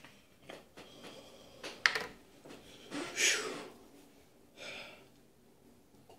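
A bottle's screw cap twisted off, with a sharp click about two seconds in. Then a man lets out two forceful breaths, a long one and a shorter one, bracing himself before a drink of salt water.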